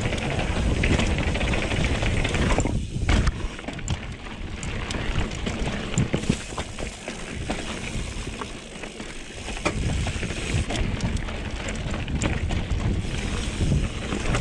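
Mountain bike rolling over bare rock: a steady rumble of wind on the chin-mounted camera's microphone, with scattered knocks and rattles from the tyres and bike on the rock.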